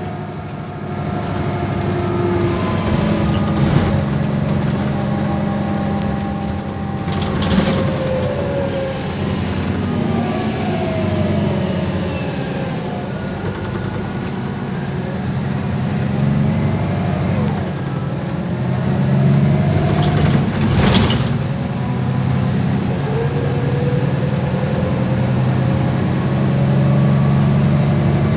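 MAN Lion's City bus on the move, heard from inside the passenger cabin. A steady engine drone runs under a whine that rises and falls as the bus speeds up and slows. Two sharp knocks come about a quarter of the way in and about three quarters of the way through.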